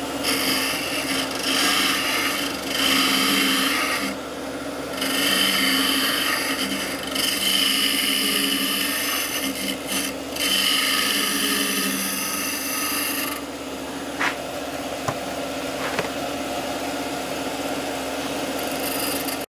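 Wood lathe running at about 1400 rpm with a steady hum while a small hand-held tool scrapes out the inside of a spinning hardwood goblet cup. The cutting comes in stretches of a few seconds each and stops a little past the middle, leaving the lathe's hum and a couple of faint clicks.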